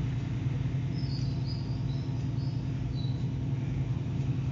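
A steady low hum of background machinery, with a few faint, high bird chirps about one to three seconds in.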